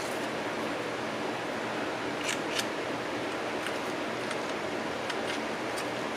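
Steady background hiss, with a few small faint clicks from about two seconds in as a screw and fingers work at the end of a sewing machine motor's housing.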